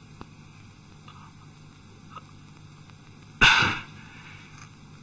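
A faint steady hiss, broken about three and a half seconds in by one short, loud, breathy outburst from a wounded man, a pained gasp or snort of breath.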